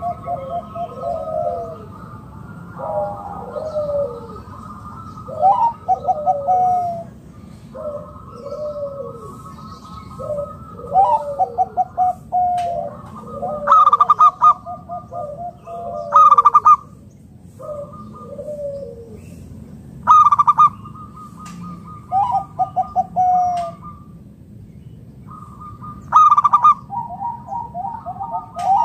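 Zebra doves (local perkutut) singing: repeated cooing phrases, each a run of quick notes, with some phrases overlapping and a few louder bursts of rapid coos.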